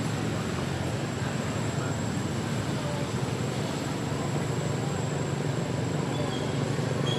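Steady low rumble of outdoor background noise, with no clear separate events.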